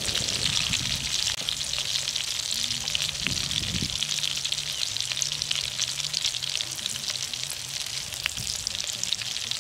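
Grasshoppers deep-frying in bubbling oil in a steel wok, a steady crackling sizzle. Near the end a metal spatula stirs them through the oil.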